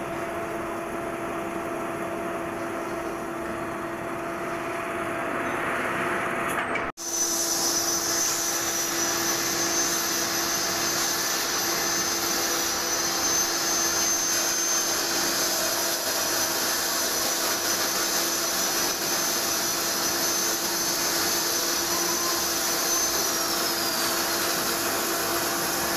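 Metal lathe running with a steady machine hum. After a brief dropout about seven seconds in, the noise is a little louder and a high whine joins it, sliding down in pitch near the end.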